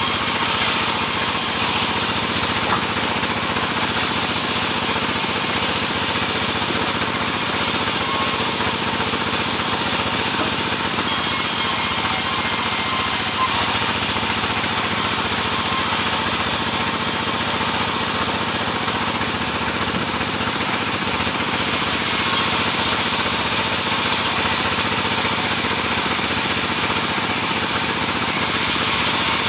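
Sawmill machinery running steadily and loudly as its saw cuts sengon (albizia) timber.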